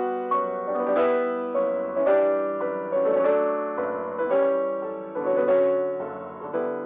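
Steinway concert grand piano played solo: a slow chordal passage, chords struck about every half second to a second, each ringing and fading before the next.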